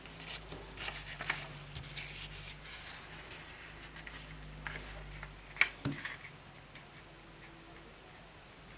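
A sheet of origami paper rustling and crinkling as hands fold it over and press the crease flat: scattered soft crackles, with one sharper tap a little past halfway.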